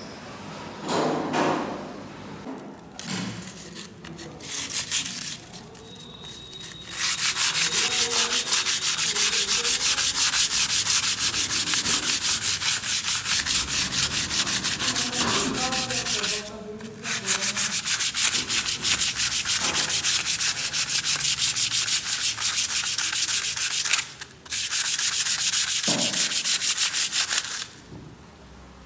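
Sandpaper rubbed by hand over a dried, raised texture-plaster relief on a wall, in rapid back-and-forth strokes. After a few light scrapes, the sanding runs in three long bouts, with short breaks about halfway through and again near the end.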